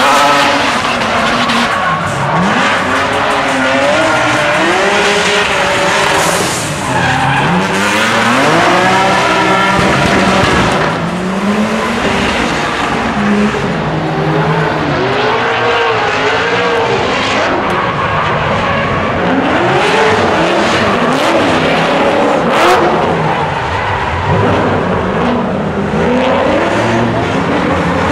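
Drift cars' engines revving hard, the pitch climbing and dropping again and again as the throttle is worked through the slides, over the continuous squeal of sliding, spinning tyres.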